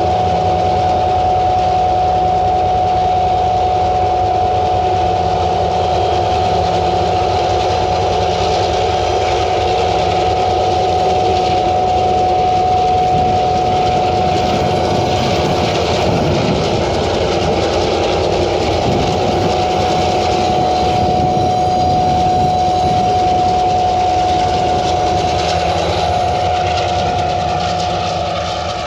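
Ore train's diesel locomotive running steadily, a constant high whine over a heavy engine rumble. The sound fades near the end.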